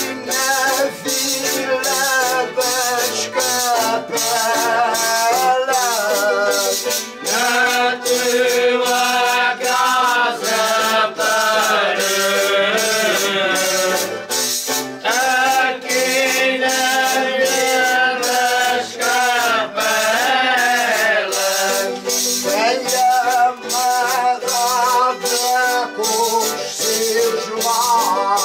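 Group of men singing an Azorean Holy Spirit foliões song in phrases, over a brisk, steady jingling rhythm from shaken metal hand percussion.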